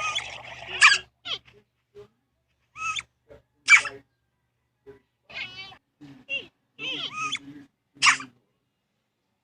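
Cat making a string of short, sharp meows and sneezes, about a second apart, two of them louder than the rest.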